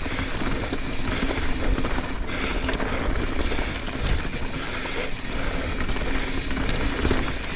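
Mountain bike rolling fast down a dirt flow trail: a steady rush of tyre noise and wind rumble, with rattling from the bike over the bumps.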